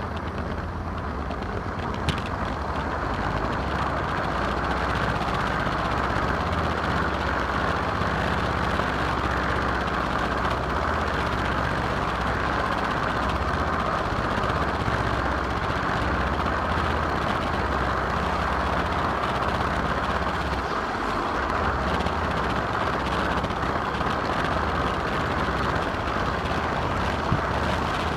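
Garden-scale model train running along its track, heard from a camera riding in one of the coaches: a steady rolling noise of wheels on rail that carries on without a break.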